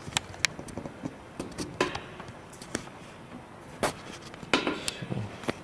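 Scattered small clicks, taps and short rustles of hands handling a mini servo and the wing panel around its servo bay, with a few louder rustles partway through.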